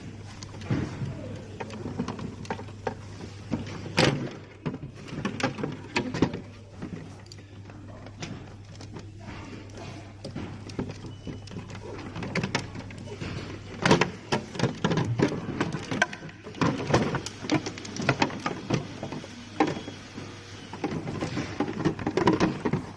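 Irregular clicks, knocks and light rattles of parts and tools being handled, loudest about four seconds in and again near the middle, over a steady low hum.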